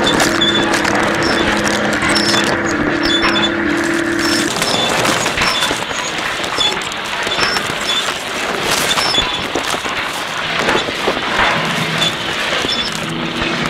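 Experimental noise / musique concrète recording: a steady low tone over a dense noisy wash that cuts off about four seconds in, leaving a crackling, clattering texture with scattered high ticks; a low tone comes back near the end.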